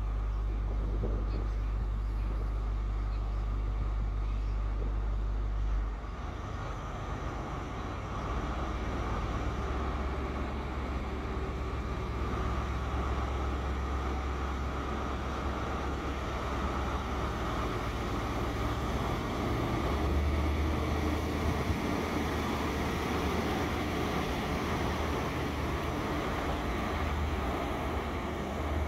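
Diesel train at a station, engines running: a steady low hum that changes about six seconds in, then a broad rushing noise of engine and rail that builds and stays loud, peaking about twenty seconds in.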